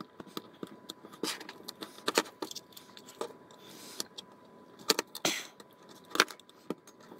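Screwdriver and pry tool working at the snap clips of a plastic Clapper switch housing: irregular clicks, taps and scrapes of metal on hard plastic as the tight clips are forced loose.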